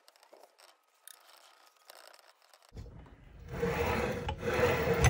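Steel wool scrubbing rust off the steel slide rails of a sliding mitre saw, a faint scratching rub. About three seconds in, the saw head is run along the freshly cleaned rails, a much louder rolling rumble that ends in a sharp knock.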